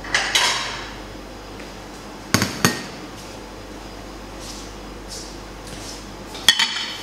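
Ceramic plates knocking and clinking on a stainless steel worktop as they are set down and shifted. There is a ringing clatter at the start, two sharp knocks about two and a half seconds in, and another knock near the end.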